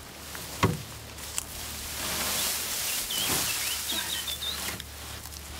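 Rustling with a sharp knock about half a second in and a softer one a second later; a small bird twitters several short chirps near the middle.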